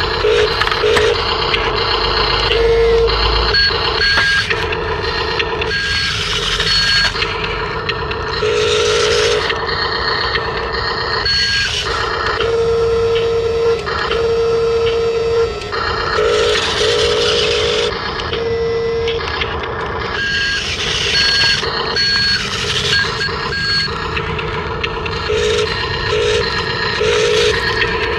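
Toy RC construction vehicles running: electronic beeping tones, some long and some in short even pulses, over the whir of small electric motors and gears.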